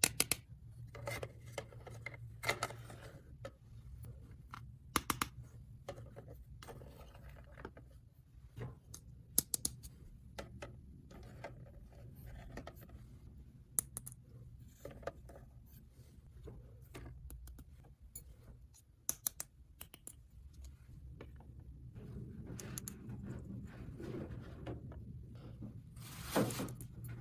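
Small plastic toy pieces and packaging being handled: scattered light clicks, taps and short scrapes, with a louder rustle near the end, over a steady low hum.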